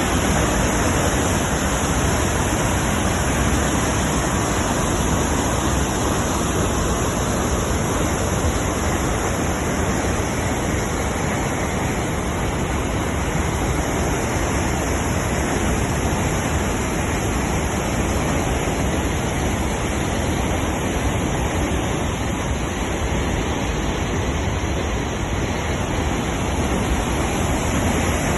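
Loud, steady rushing of fast-flowing water at a hydroelectric dam on a mountain river.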